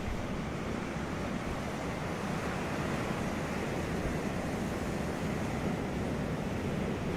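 Ocean surf washing onto a beach: a steady rushing wash of waves, with some wind.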